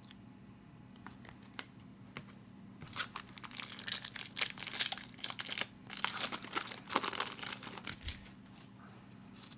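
Wrapper of a trading-card pack crinkling and tearing as it is opened, starting about three seconds in after a few faint clicks.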